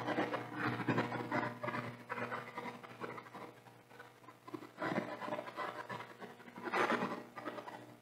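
Muffled, indistinct talking over a steady low hum.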